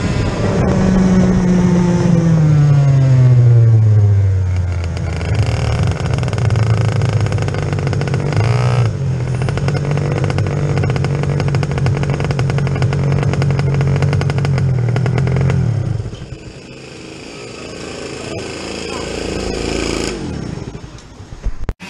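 IAME X30 125cc two-stroke kart engine heard from onboard, its revs falling steadily as the kart slows off the track, then running at a steady low pitch before it cuts off about sixteen seconds in. Other kart engines run more faintly afterwards.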